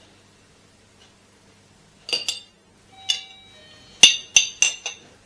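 Kitchen utensil clinking against glassware: a series of sharp clinks, each with a short ringing tone, starting about two seconds in and coming quicker near the end.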